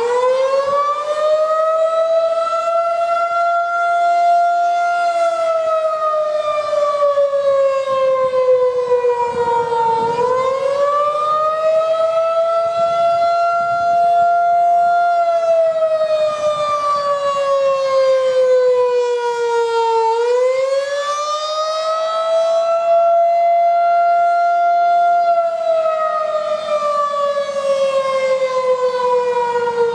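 Federal Signal 2001-130 DC outdoor warning siren sounding a wail for its monthly test. The pitch rises over about four seconds, holds briefly, then falls over about five, in repeating ten-second cycles.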